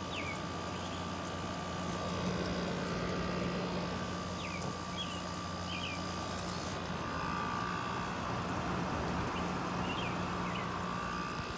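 LG 8,000 BTU window air conditioner running, its compressor and fan giving a steady hum over the rush of air, with light rain in the background.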